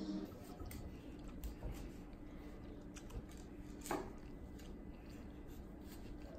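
Chef's knife slicing through a lime on a paper towel over a stone countertop: soft, faint cutting and tapping, with one sharper knock of the blade about four seconds in.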